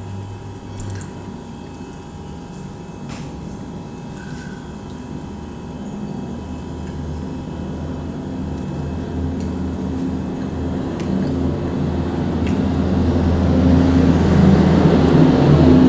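Low rumble of a passing vehicle, growing steadily louder through the second half, with a few faint clicks over it.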